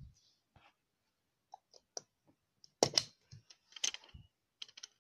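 Small hard plastic toy figures clicking and knocking as they are handled: scattered short sharp clicks, a few faint ones, then a louder cluster about three seconds in and more near the end.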